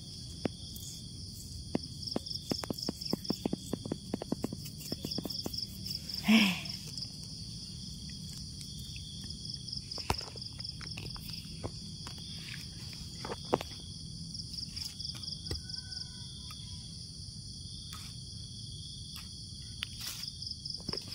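Insects chirping steadily in a pulsing, high-pitched chorus. Scattered short clicks and rustles come over it, busiest in the first few seconds, and about six seconds in there is one short, loud sound that falls steeply in pitch.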